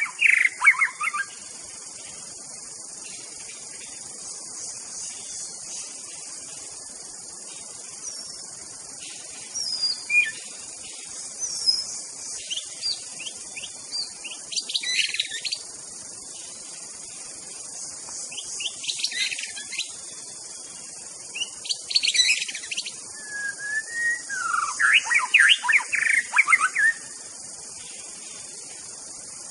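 White-rumped shama singing in short, varied whistled phrases, several of them a few seconds apart, loudest near the start and near the end. A steady high insect drone runs underneath.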